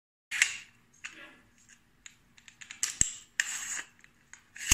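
Metal tube sections of a folding slingshot-rifle rod being handled and fitted together: scraping and small clicks, with one sharp click about three seconds in.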